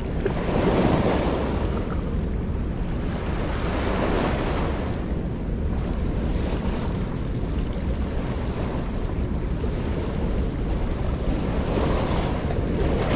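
Wind buffeting the microphone over river waves washing onto a rocky shore, surging in gusts about a second in, around four seconds in and near the end.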